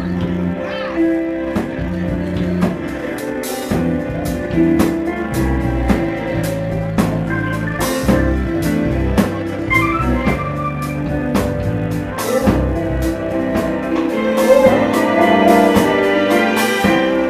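Live band music: a drum kit played with frequent cymbal hits over electric guitar and electronic keyboards playing sustained chords and a bass line.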